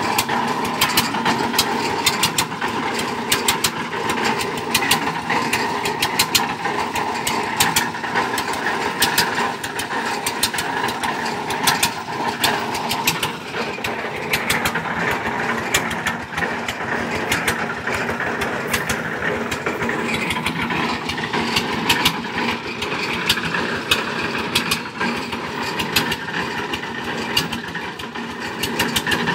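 Engine of a water-well boring rig running steadily, with a rapid train of sharp knocks over its steady noise.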